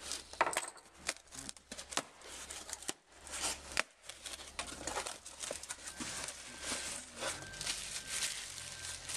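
A cardboard box being opened and a headlight unwrapped from its plastic wrapping: cardboard flaps scraping and plastic crinkling, with irregular clicks and knocks.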